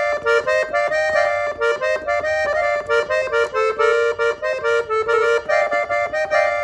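Gabbanelli button accordion tuned in F playing a quick melody in B-flat on its treble buttons: a fast run of short, separately articulated reed notes, with a slightly longer held note about four to five seconds in.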